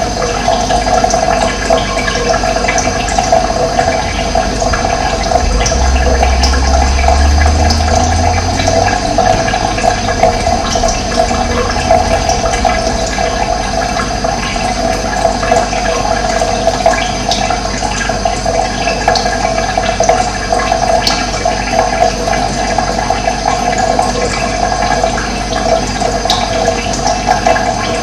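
Running water flowing steadily, with a brief low rumble about six to nine seconds in.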